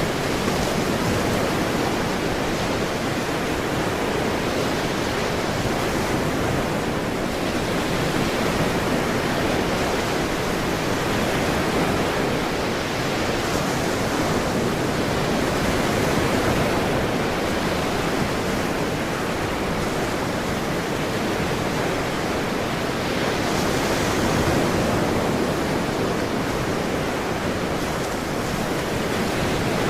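Ocean surf washing steadily onto the shore, a continuous rushing noise that swells gently every several seconds.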